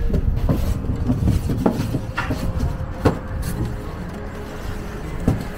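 Styrofoam cooler box and lid being handled: a series of light knocks and squeaky rubs as the lid is lifted and the box pressed down, with sharper knocks about three seconds in and near the end, over a steady low rumble.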